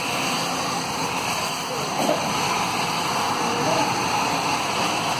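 Steady hiss of car tyres passing on a rain-soaked road, with vehicle engines underneath.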